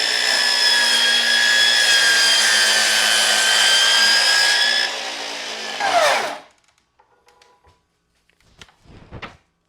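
Ryobi 36V cordless miter saw motor running at full speed with a steady high whine while the blade cuts through wood. About six seconds in it is released and stops quickly under its brake, the pitch falling away in about half a second. A few light knocks follow.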